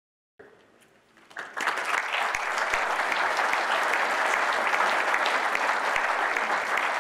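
Large audience applauding: the clapping fades in faintly and swells to full, steady applause about a second and a half in.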